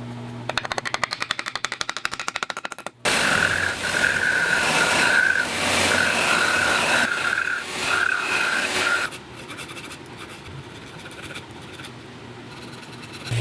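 Workshop metalworking sounds in abrupt cuts: a rapid train of ticks, then a power grinder working metal with a whining tone that breaks off and on for about six seconds, then quieter fast ticking.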